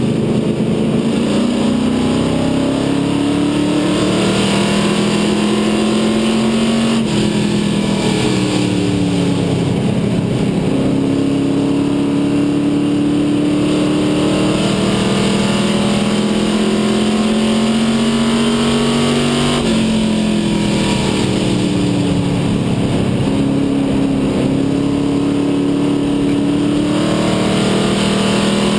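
Dare Stock race car's engine at racing speed, heard from inside the cabin. The revs climb steadily along each straight and drop sharply twice, about 7 and 20 seconds in, as the driver lifts for the turns.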